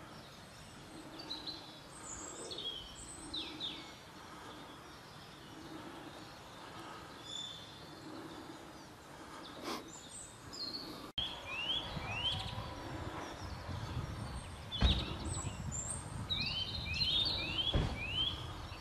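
Wild birds chirping and singing, with quick runs of short falling notes in the second half. A low rumble comes in about halfway, with two thumps near the end.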